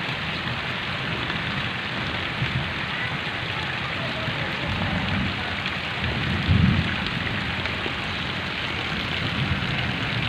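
Heavy rain falling steadily onto waterlogged ground and standing water, an even hiss, with a low rumble underneath that swells briefly about six and a half seconds in.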